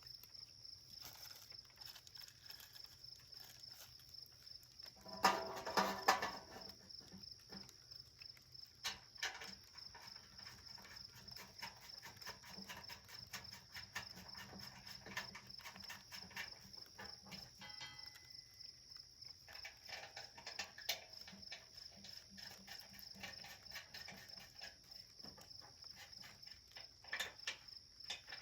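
Steady, high, pulsing insect trill, like crickets, with scattered small ticks and clicks. A louder clatter of handling comes about five to six seconds in.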